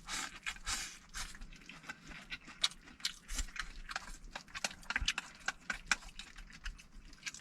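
Irregular light clicks, taps and knocks of small objects being handled, some sharper than others.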